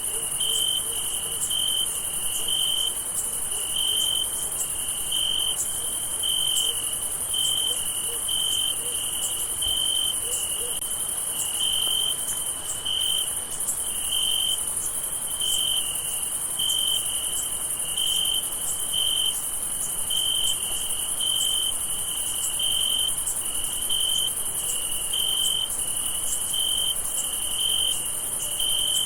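Crickets chirping in a night chorus: one clear cricket gives short high chirps in a steady rhythm, a little more than once a second, over a constant high-pitched insect hiss.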